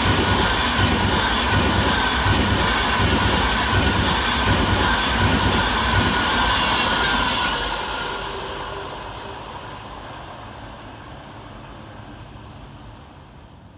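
Avanti West Coast Class 390 Pendolino electric train passing, with a rhythmic clatter of wheels over the rails and a steady high whine. It dies away over the second half as the train recedes.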